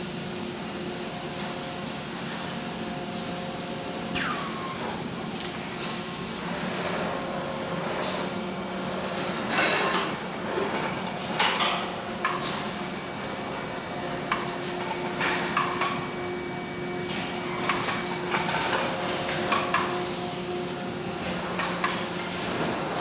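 Robotic car-body spot-welding line running: a steady machine hum, with irregular sharp clacks and short hisses from the welding guns and robot arms, starting about four seconds in and coming every second or two.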